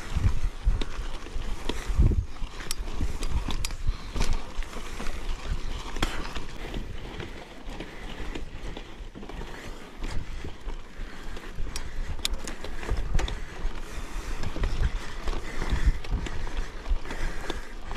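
Mountain bike riding on a steep, rough trail, heard through a GoPro action camera: the tyres and bike rattle over the ground with scattered sharp clicks and knocks. Low rumbles of wind and jolts hit the microphone.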